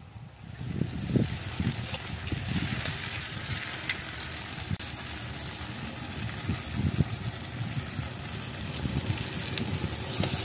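Wine poured into a hot frying pan of chicken drumsticks, sizzling over a wood fire, with a steady low rumble underneath and a few sharp crackles.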